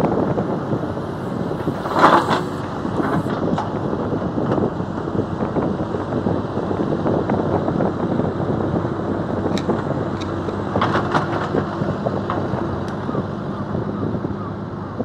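Hydraulic excavator's diesel engine running steadily as the boom and arm move, with a few sharp knocks, the loudest about two seconds in and more around ten to eleven seconds.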